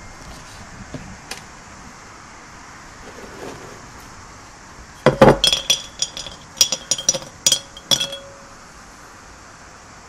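Small stones clattering into the bottom of a glazed ceramic flowerpot: a quick run of sharp clinks starting about five seconds in and lasting about three seconds, the pot ringing briefly after each hit.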